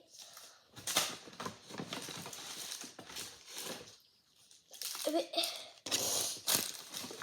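Candy packaging and wrappers being handled and rummaged through: irregular crinkling and rustling in two stretches, with a short pause about four seconds in.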